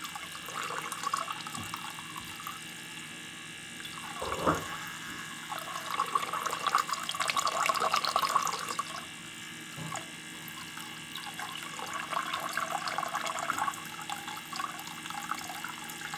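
Water streaming and splashing from a 12V self-priming mini diaphragm pump's outlet, heavier in stretches, over a faint steady hum. A single soft knock sounds about four seconds in.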